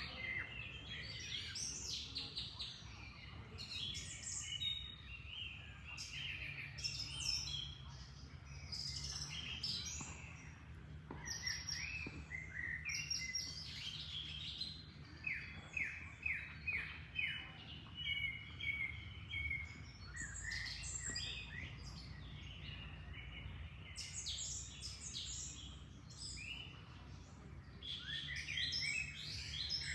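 Several songbirds chirping and singing in quick, overlapping phrases, with a run of five or six quick downward notes about halfway through. Underneath runs a steady low rush of flowing water.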